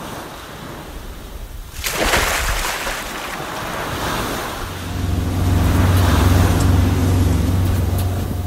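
Ocean waves sound effect: surf washing, with a louder rush about two seconds in. About halfway through, a steady low drone comes in under the waves.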